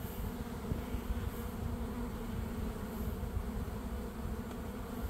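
Honeybee swarm buzzing in flight: a steady hum of many bees circling and settling on a caged queen, drawn by her scent.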